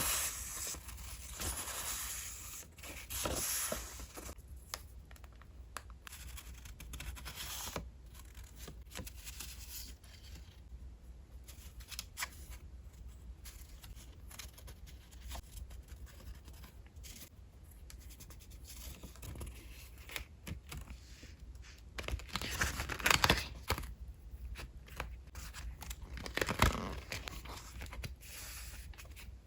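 Paper goods and packaging handled by hand during an unboxing: irregular bursts of rustling, with a quieter stretch of small clicks and light handling in the middle and the two loudest bursts near the end.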